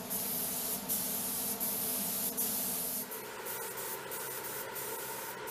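Compressed-air paint spray gun with a gravity-feed cup hissing steadily as it sprays coating onto an aircraft panel, with a few brief dips in the hiss.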